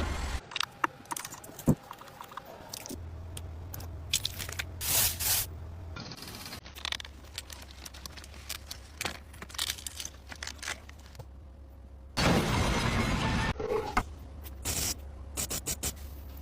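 Repeated scraping, clicks and knocks over a low steady hum, with a louder stretch of noise about twelve seconds in.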